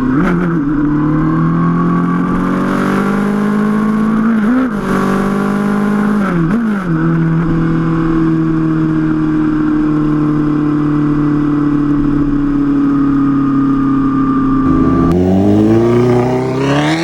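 2017 Kawasaki Z900's 948 cc inline-four running loud through an aftermarket SC-Project exhaust. The engine note dips and picks up again twice early on, then holds a steady, slowly falling drone. Near the end it drops and then climbs sharply as the engine revs hard.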